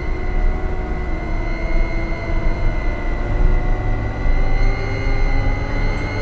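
A sustained droning soundtrack: a low rumble beneath several held tones, the highest a thin steady tone, with the pitches drifting slowly.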